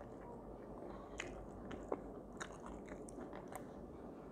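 A person chewing a mouthful of bread sandwich with falafel salad close to the microphone, with scattered small wet clicks and crunches.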